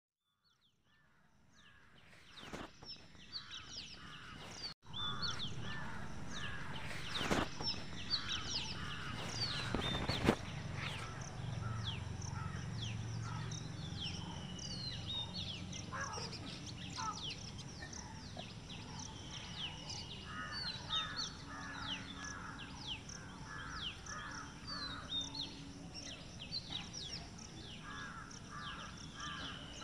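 Birds calling outdoors: many short high chirps and repeated pulsed calls in groups, with a few sharp knocks in the first ten seconds. The sound fades in over the first few seconds.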